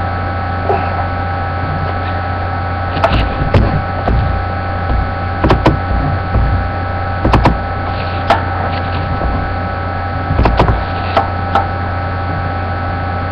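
Steady low electrical hum with a few fainter steady higher tones. It is broken by irregular knocks and clicks, about a dozen in all, several coming in close pairs.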